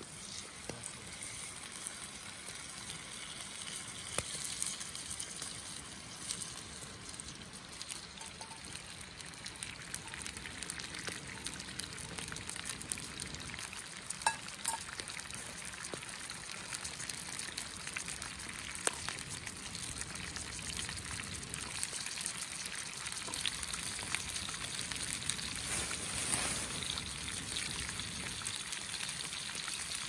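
Chicken and sausages sizzling in a frying pan over a campfire. A steady frying hiss starts as the meat goes into the hot pan and grows a little louder, with a few scattered pops.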